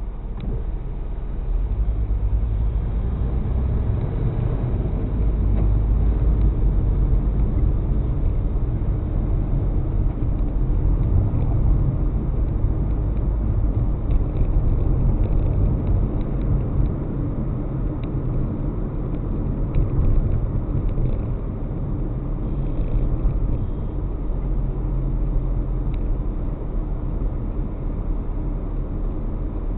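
Car driving on city roads, a steady low rumble of engine and tyre noise heard from inside the cabin, getting a little louder about two seconds in.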